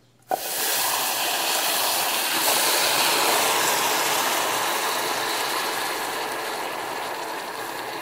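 Water poured into a saucepan of hot melted caramelized sugar, which hisses and spatters loudly as it turns to steam. The hiss starts suddenly about a third of a second in and slowly dies down.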